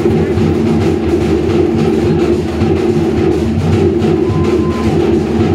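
Fast, driving Cook Islands drumming, wooden slit-log drums with a skin drum, keeping a steady unbroken rhythm for a drum dance.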